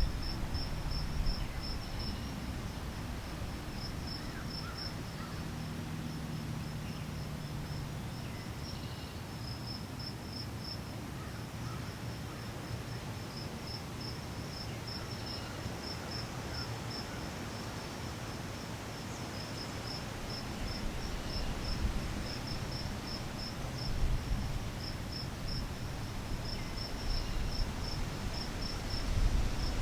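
Insects chirping in a steady run of rapid, high-pitched pulses, with a few faint bird chirps and a low rumble beneath.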